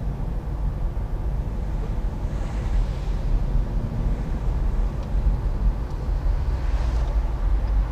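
Steady low rumble of a car driving slowly on a city street, heard from inside the cabin, with a faint hiss swelling about two and a half seconds in and again near the end.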